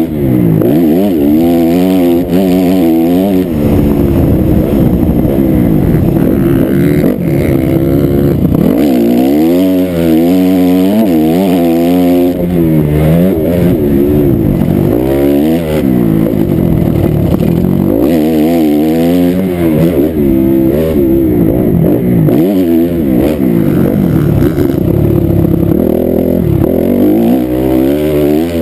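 Dirt bike engine under hard riding, its pitch climbing and dropping over and over as the throttle is opened and shut and the gears are changed.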